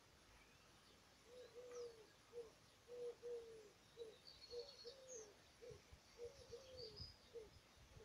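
A dove cooing: a low three-note phrase of two longer coos and a short one, repeated about four times, starting a little over a second in. Faint high chirps of small birds sound above it.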